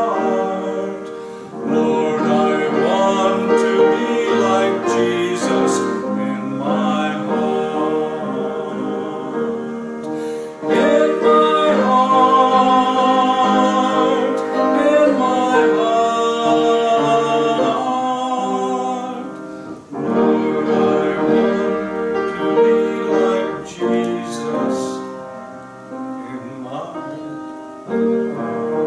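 A hymn sung with piano accompaniment, held notes with vibrato, one phrase after another.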